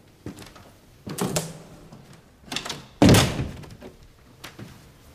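An apartment door shut with a solid thunk about three seconds in, after a few lighter knocks and scuffs of people moving in the doorway.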